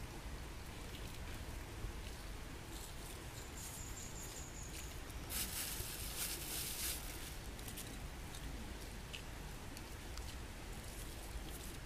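Coarse salt being sprinkled over raw eels laid in a split bamboo tube: a faint pattering of grains, rising to a louder crackly hiss of patter for a second or two about five seconds in, over a low steady rumble.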